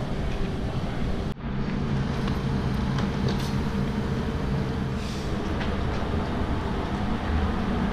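Steady electric hum and rumble of a rack-railway train standing at the platform. The sound drops out briefly just over a second in, then carries on as before.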